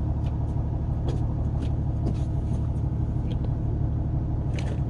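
Fishing boat's engine idling with a steady low rumble, with a few faint clicks over it.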